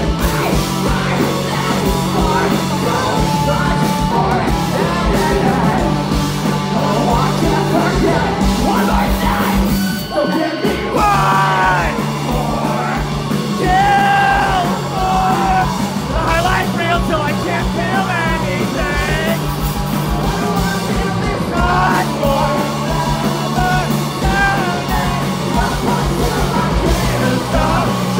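Live rock band playing loud: electric guitars, bass and drums with yelled vocals, pausing briefly about ten seconds in before coming back in.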